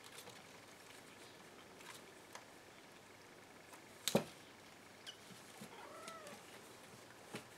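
Two kittens scuffling in a wicker basket: faint scratching and light knocks, with one sharp knock about four seconds in and a brief faint mew near six seconds.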